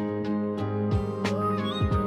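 Soft background music: plucked notes over sustained tones, with low drum hits about once a second.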